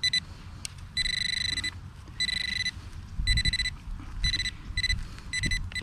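Handheld metal-detecting pinpointer probe beeping with a high electronic tone in short, irregular beeps as it is worked through a dug plug of soil, going to a continuous tone near the end as it closes on the target coin. Low knocks and rubbing from handling the dirt sit underneath.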